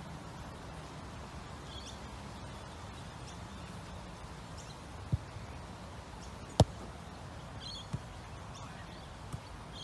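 A football struck hard with the foot: one sharp, loud thud about two-thirds of the way in, with fainter knocks before and after it. Birds chirp faintly throughout.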